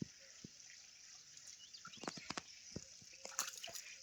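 Irregular small splashes and drips of water, coming thicker after about two seconds, over a steady high hiss.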